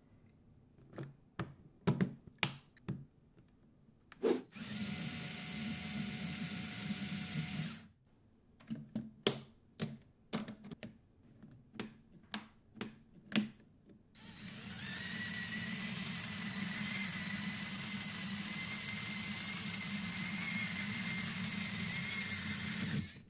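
Lego Technic parts clicking as they are handled, then a Lego electric motor whirring through its gears for about three seconds. After more clicks, the motor and geared drivetrain whir steadily for the last nine seconds as the Lego vehicle drives on the glass slope.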